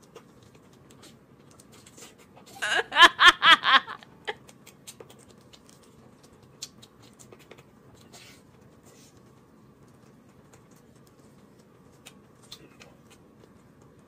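Faint clicks and smacking of a man tearing apart and chewing a braised chicken leg with his hands. About three seconds in there is a short, loud burst of pulsed voice lasting a second or so.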